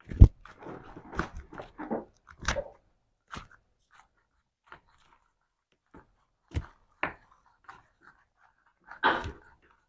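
Slime being squeezed and pressed by hand, making irregular wet squelches and pops. A busy run of them comes first, then single pops every second or two.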